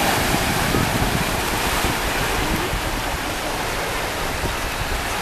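Surf breaking and washing up the shore in a steady rush, with wind rumbling on the microphone.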